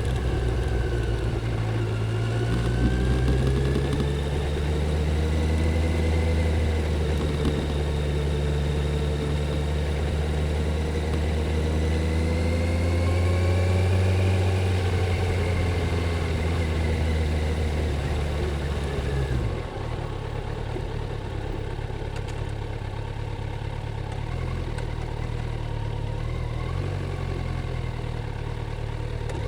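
Kawasaki Z900's inline-four engine through its stock exhaust, running under way, its note rising and falling with the throttle. About two-thirds of the way through it drops suddenly to a quieter, steadier low note.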